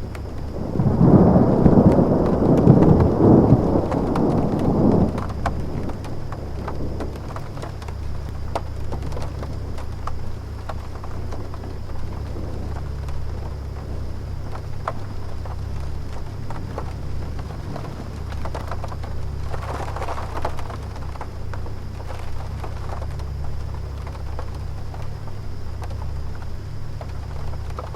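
Air conditioner running with a steady low hum while a distant thunderstorm goes on outside, with rain pattering. A loud rumble of thunder comes about a second in and lasts around four seconds, and a fainter rumble follows about two-thirds of the way through.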